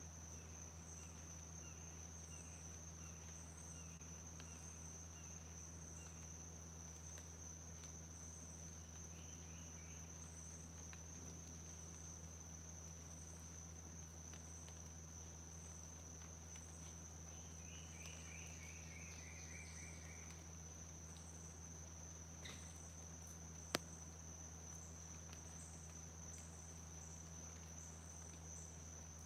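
Faint outdoor insect chorus: a continuous high-pitched trill with short chirps pulsing above it about once a second. A sharp click sounds once, about 24 seconds in.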